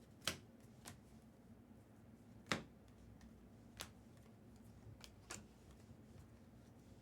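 Trading cards being handled on a table: a handful of sharp, irregular clicks and taps as cards are flicked through and set down, over a faint steady low hum.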